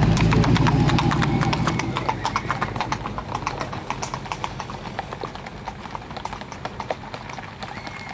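Hoofbeats of gaited horses walking past on a dirt road: a quick, even clip-clop that grows quieter as the horses move on. Over the first two seconds a low, steady engine-like hum fades out under the hoofbeats.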